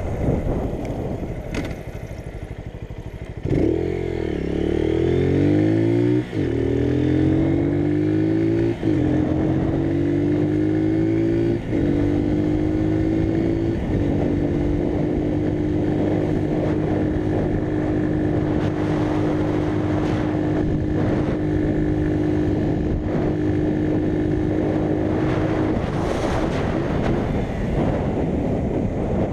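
Motorcycle engine accelerating up through the gears: the note climbs and drops back four times as the rider shifts up, then holds steady at cruising speed. Near the end the engine note falls away as the throttle closes, leaving wind rushing over the microphone.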